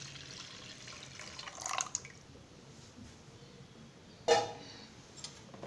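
Water poured in a stream into liquid in a pan, splashing, which stops about two seconds in. About four seconds in comes a single sharp clink with a short ring.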